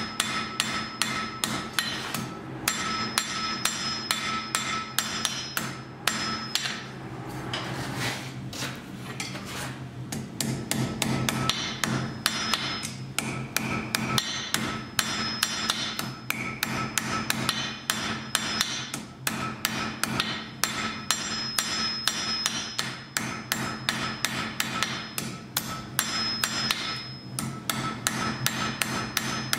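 Blacksmith's hammer striking iron on an anvil at about three blows a second, in runs broken by short pauses, the anvil ringing through each run. A steady low hum runs underneath.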